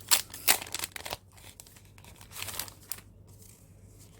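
Plastic packaging crinkling as an item is handled and unwrapped: crackly bursts through the first second, another cluster about two and a half seconds in, then quieter.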